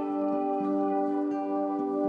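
Soft new-age ambient music: long held, layered tones, with gentle new notes coming in every half second or so.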